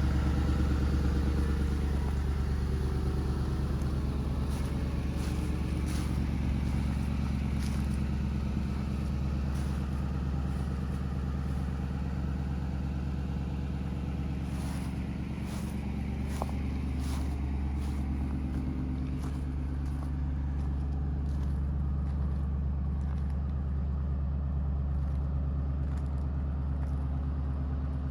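Ford Crown Victoria's 4.6-litre V8 idling steadily, with scattered faint clicks over it.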